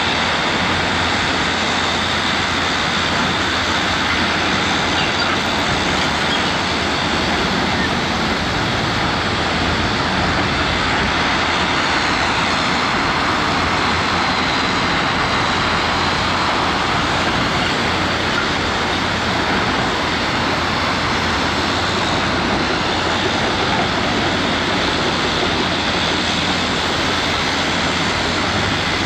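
Heavy construction machinery running steadily: a continuous, even engine noise with no breaks or impacts.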